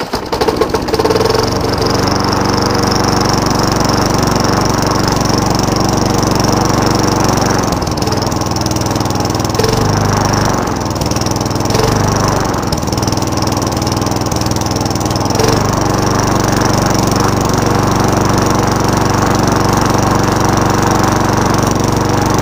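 Small 3.5 hp Craftsman push-mower engine catching on a cold start right at the first pull, then running on steadily. Its note wavers briefly about eight to twelve seconds in.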